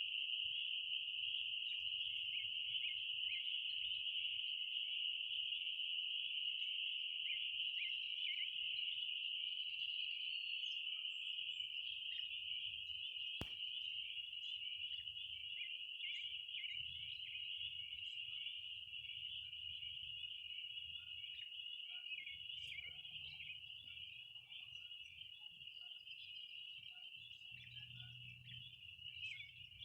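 A steady chorus of insects trilling on one high pitch without a break, easing off a little in the second half. A single sharp click comes about 13 seconds in, and a few faint bird chirps are heard toward the end.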